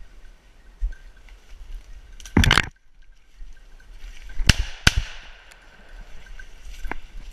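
Two shotgun shots about half a second apart, some four and a half seconds in, fired at a woodcock and missed. A short, loud burst of noise comes about two seconds before the shots.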